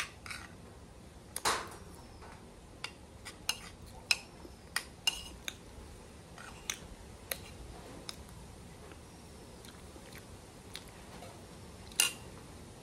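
Metal cutlery clinking and scraping against a plate as food is scooped up: a dozen or so sharp, separate clicks, the loudest about a second and a half in and another near the end.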